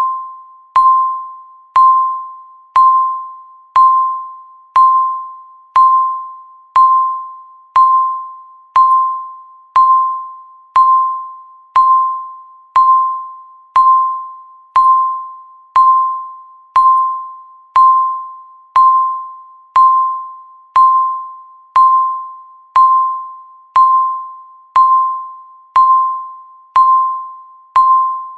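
Countdown timer beeping once a second: each beep is a sharp, single-pitched ding that fades away before the next one.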